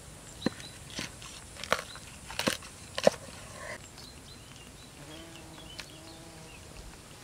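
A few sharp knocks or clicks at uneven intervals, about five in the first three seconds, the last the loudest, then only faint background sounds.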